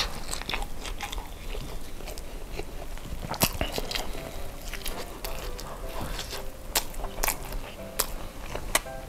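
Close-miked chewing of a mouthful of sauce-coated spicy fried chicken and rice, with wet, sticky mouth sounds and scattered sharp clicks, more of them from a few seconds in.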